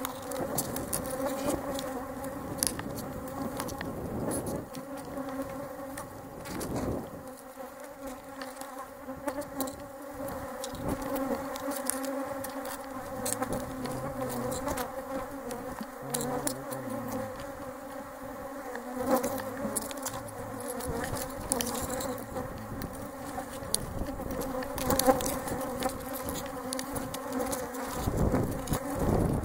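Honey bees buzzing around an open hive, a steady hum holding several pitches at once. Scattered sharp clicks and a few louder knocks come from the hive tool working the wooden frames.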